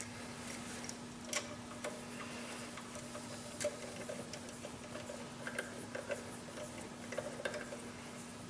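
Hand ratchet clicking in short, irregular strokes with light metallic clinks as fittings on a Cummins diesel's cylinder head are worked. A steady low hum runs underneath.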